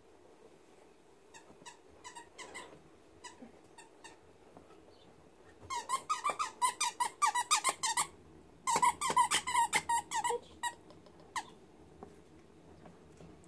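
A dog's rubber squeaky toy squeaked over and over in quick succession: a few faint squeaks first, then two loud rapid runs of sharp squeaks with a short break between them.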